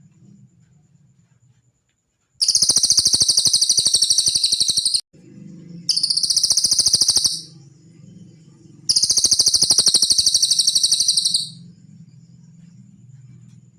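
Cililin bird song: three long, very rapid high-pitched trills, each lasting about one and a half to two and a half seconds, with short gaps between them. A faint low hum runs underneath.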